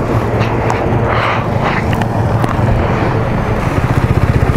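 Motorcycle engine running with a steady low hum over wind and road noise, pulsing rapidly in loudness near the end.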